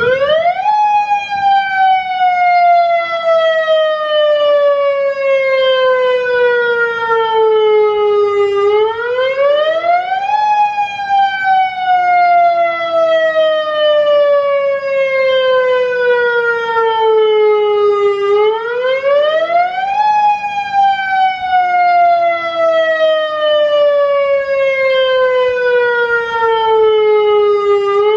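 Federal Signal Modulator 1004 outdoor warning siren sounding its attack signal. Its tone comes on suddenly, then repeatedly rises in pitch over about two seconds and slides slowly back down over about seven.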